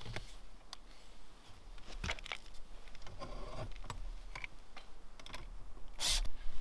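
Light scattered clicks and rattles of small mounting hardware being handled, then a short burst of noise about six seconds in as a cordless drill is run briefly, fastening an antenna mounting bracket to a wooden post.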